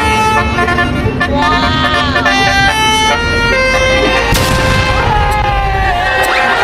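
A bus's basuri (telolet) multi-tone air horn playing a melody: a run of held notes that step up and down, with a few bends in pitch.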